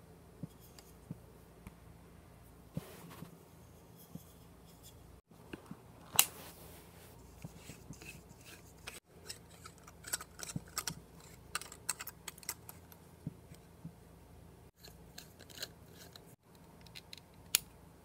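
Handling noises from a compact fluorescent bulb being screwed into a lamp socket: scattered light plastic clicks, scrapes and rubbing. A sharp click about six seconds in and another near the end.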